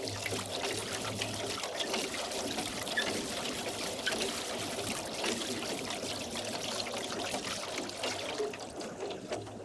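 Lake water splashing and trickling around a rowboat as it is rowed, with small drips and splashes throughout.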